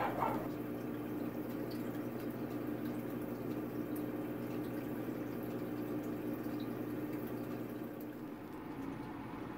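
Aquarium air stone bubbling steadily in the fry tank, a continuous watery fizz and patter of bubbles at the surface, with a low steady hum underneath.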